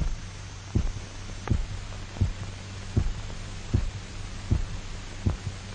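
A heartbeat sound: a regular single thump about every three-quarters of a second, about 80 a minute. It marks the revived dog's heart beating steadily on its own again. A steady low hum runs underneath.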